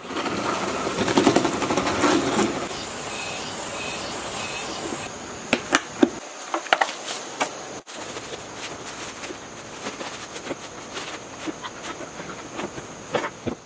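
Handling noises of a plastic-wrapped generator: plastic sheeting rustling and crinkling, then sharp clicks as the twisted binding wire is cut with pliers. A faint steady high tone runs underneath from about a third of the way in.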